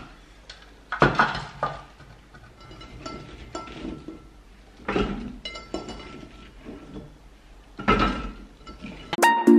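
Cauliflower florets being dropped by hand into a blender's jar: a few knocks and clinks against the jar, about a second in, around five seconds and again around eight seconds. Light music with mallet percussion starts just before the end.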